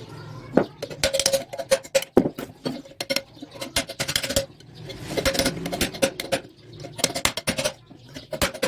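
Runs of sharp metal-on-metal knocks with a ringing tone, separated by short pauses. A ground-flat screwdriver is being struck against the end cover of a washing-machine motor to work the cover off its bearing.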